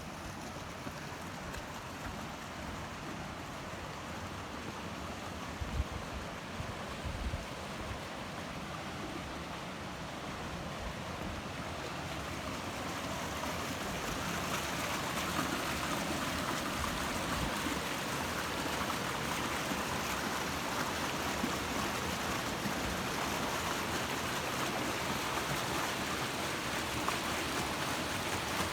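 Mountain stream rushing over rocks, a steady noise that grows louder about halfway through. A few low knocks come about six seconds in.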